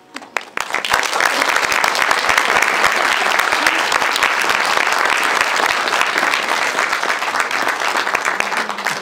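Theatre audience applauding. The clapping swells within the first second, holds steady and dense, and dies away at the very end.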